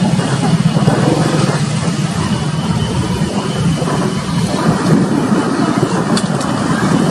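WDM-3A diesel locomotive's ALCO 16-cylinder engine running as it hauls a passenger train in, a loud, steady low rumble.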